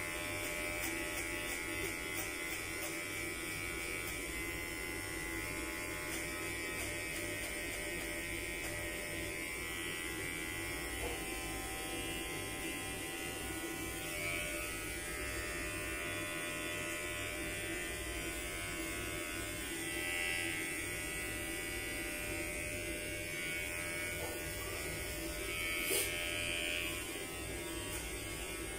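Electric hair clipper running with a steady buzz as it cuts hair, with a brief sharper sound near the end.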